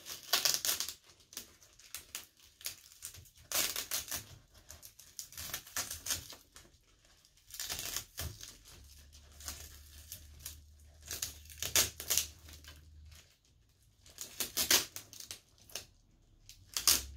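Plastic wrap and tape being peeled and unwound from around the top of a plastic plant pot, crinkling and crackling in short bursts with pauses between.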